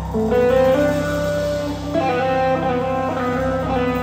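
Live rock band with two electric guitars playing held, stepping lead notes over a steady low bass.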